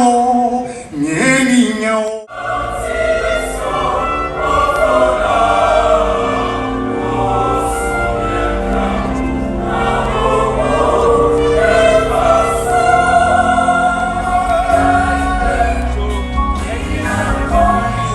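Gospel chorale singing. About two seconds in the sound breaks off abruptly, and the choir carries on with a steady bass underneath.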